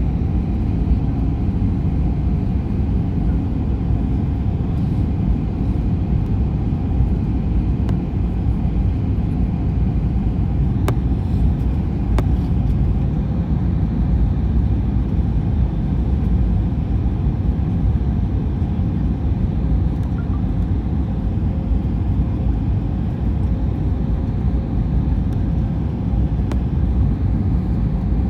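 Steady engine and airflow noise inside a jet airliner's cabin, a constant low rumble with a faint hum, broken only by a couple of light ticks about eleven and twelve seconds in.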